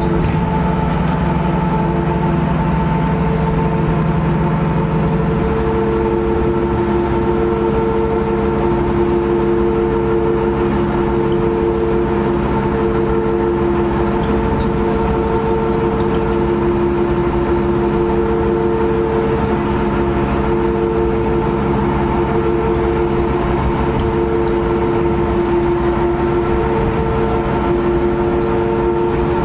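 A 2000 Nova Bus LFS city bus running, heard from inside the cabin: a steady diesel engine and drivetrain drone with several whining tones, one of them pulsing on and off. A low hum drops out about five seconds in.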